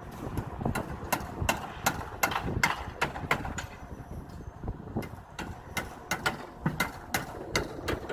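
Hammer blows on wooden wall formwork, about two to three strikes a second in two runs with a pause between, over a low background rumble.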